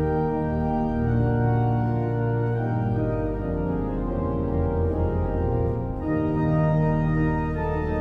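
Pipe organ playing slow, sustained chords over deep bass notes, moving to a new chord every second or two.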